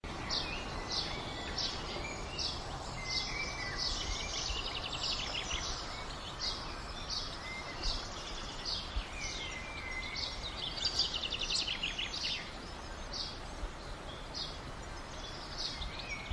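Wild birds chirping over a steady outdoor background hiss: many short, high calls in quick succession, with a couple of rapid rattling trills.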